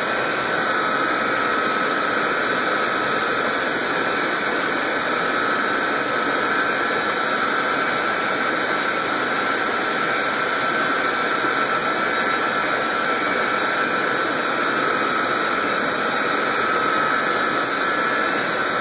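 Steady rushing noise of fish-tank pumps and aeration, with a faint steady whine above it.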